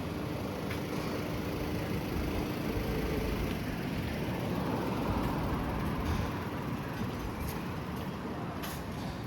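City street traffic: vehicles passing in a steady rumble that swells a little midway.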